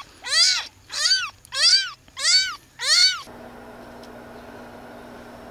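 A young kitten mewing five times in quick succession, each call high-pitched and arching up then down, about one every 0.6 s. After the calls stop, about three seconds in, only a steady low hum remains.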